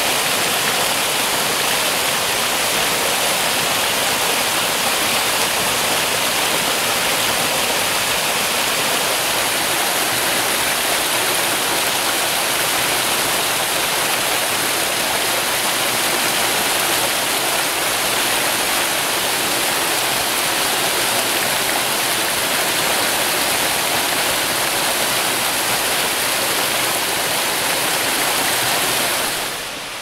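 Water rushing and splashing close up as a small mountain stream cascades over rocks: a steady, loud rush of falling water that drops to a quieter hiss right at the end.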